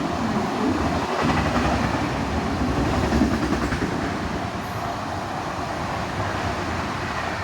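Train running at speed: a loud, steady rumble of wheels on rail that slowly eases off toward the end.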